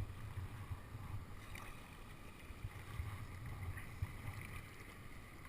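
Kayak being paddled: faint paddle strokes in the water under a steady low rumble of wind on the microphone.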